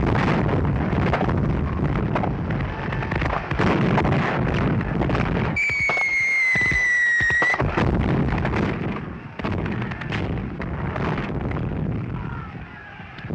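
Battle sound effects of rapid rifle and machine-gun fire mixed with explosions, thinning out in the second half. About six seconds in, a whistle sounds for about two seconds, falling slightly in pitch.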